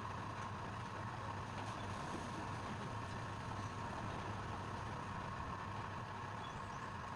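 A steady motor hum running evenly, with no change in speed or load.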